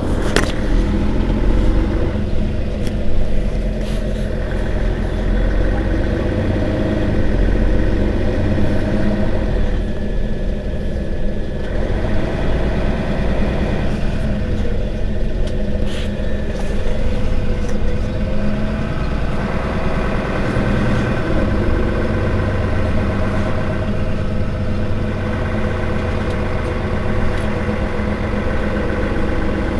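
Mercedes-Benz Citaro Facelift city bus engine running, its pitch and load shifting several times as the bus pulls away and slows, with a few sharp knocks.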